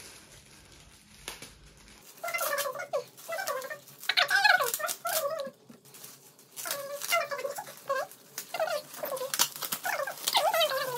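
Foil gift wrap crinkling and rustling as it is pulled off a present, with repeated high, wavering squeaky sounds from about two seconds in.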